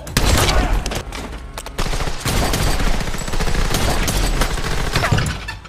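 Movie gunfight sound: heavy gunfire with shotgun blasts, shots coming in quick overlapping volleys. A loud burst right at the start and a short lull about a second in, then almost continuous firing until near the end.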